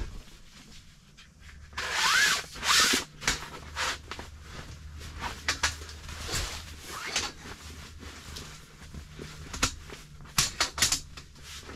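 Folding camp cot being put together: the cot's fabric rustling and rubbing against its frame as a cross brace is worked through the material, loudest about two to three seconds in, with scattered clicks and knocks from the frame, a quick cluster of them near the end.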